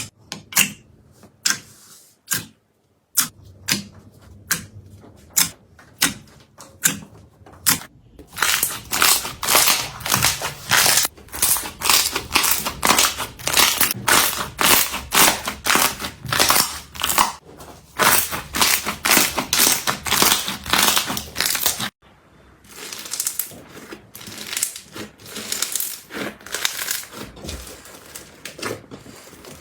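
Slime being squeezed and pressed by hand. At first it gives separate sharp pops and clicks, about one or two a second. From about eight seconds in it becomes dense, continuous crunching and crackling. This breaks off suddenly about two-thirds of the way through and resumes as another stretch of crunching.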